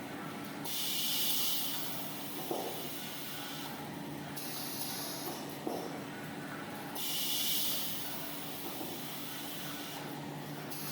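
Jumbo-roll paper band saw cutting machine running with a steady hum. Two bursts of hissing, each about three seconds long, come one shortly after the start and one past the middle, with a couple of light clicks between them.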